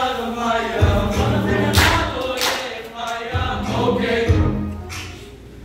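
Mixed choir of men and women singing together in chorus, in phrases with short breaks between them.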